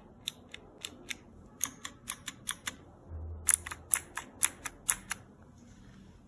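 Green clicky tactile mechanical keyboard switch (Unionwell GT06 series) pressed and released over and over, giving a series of sharp, clear clicks. The clicks come in two runs, with a louder, quicker run in the second half.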